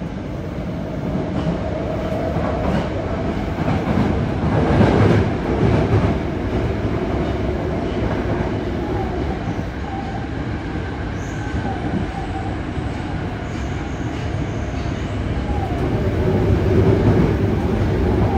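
Yokohama Municipal Subway 3000R train running through a tunnel, heard from inside the car: a steady rumble of wheels on rail that swells twice. Faint thin tones from the Mitsubishi IGBT-VVVF inverter drive sit above the rumble.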